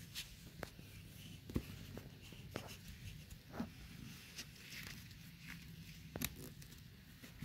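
Faint, scattered taps and knocks from small objects being handled close to the camera, over a low steady hum.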